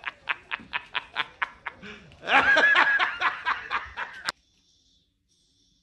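A man laughing hysterically in rapid 'ha-ha-ha' bursts, about five a second, swelling into a louder, drawn-out high laugh about two seconds in, then cutting off suddenly with over a second left.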